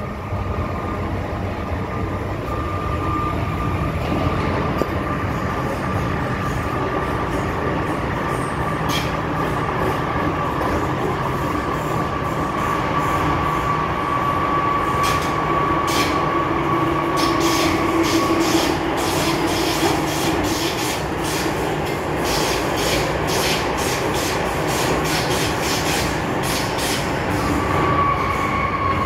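Interior of an MTR M-Train electric multiple unit running at speed: a steady rumble of wheels on track with a constant high whine. From about a third of the way in come rapid, regular clicks of wheels over rail joints, and near the end a fresh whine sets in and falls in pitch.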